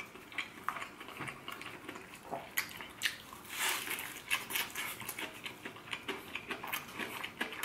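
Crunching into crispy fried chicken and chewing: the brittle breading crackles in quick, irregular clicks, with a denser crunch of a bite about three to four seconds in.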